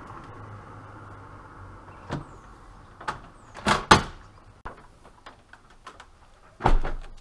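PC case side panel being fitted back on and closed: several knocks and clunks, a loud pair about four seconds in and another near the end, over a steady hiss that fades away.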